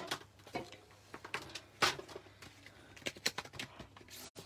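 Hands handling craft supplies on a craft mat: scattered light clicks, taps and rustles, the loudest a little under two seconds in.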